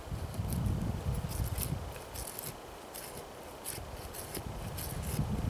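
Custom bushcraft knife blade shaving curls off a wooden stick: repeated short, crisp scraping strokes, about two a second.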